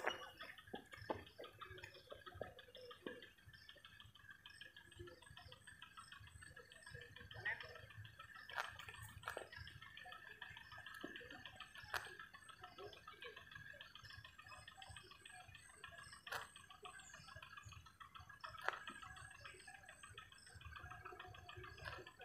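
Near silence: a faint steady high hum with a few scattered faint clicks.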